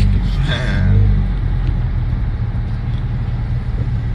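Low, steady rumble of a car engine running, with a brief faint voice about half a second in.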